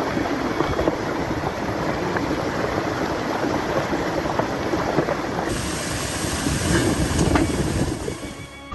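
Floodwater rushing loudly and steadily, with scattered small knocks and splashes in the torrent.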